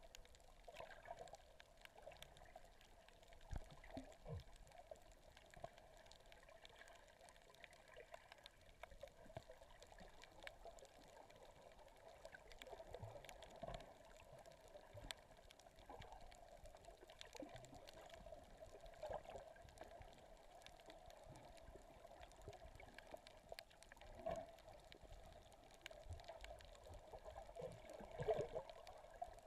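Faint water noise heard underwater: a steady muffled wash with scattered small clicks and a few low thumps, the loudest near the end.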